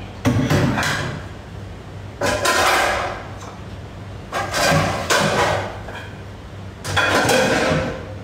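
Kitchen utensils, dishes and containers being handled and put away on a counter, clattering in four bursts of about a second each, over a steady low hum.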